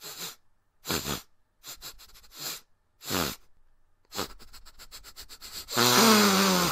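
A cartoon bear's voice actor sniffing hard, in several separate sniffs, then a quick run of short sniffs. Near the end comes a long, loud, low voiced sound.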